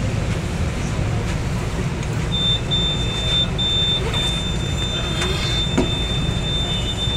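Train door-closing warning on an MRT Line 3 car stopped at a station: a steady high-pitched tone starts about two seconds in, breaks twice briefly, then holds. Under it runs a low rumble of the train and platform, with a murmur of passengers.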